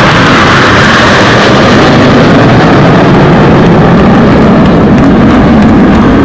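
Loud, steady jet roar from the Red Arrows' formation of BAE Hawk jets flying overhead.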